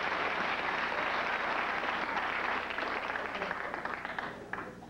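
Studio audience applauding after a joke, a dense steady clapping that fades away over the last second or two.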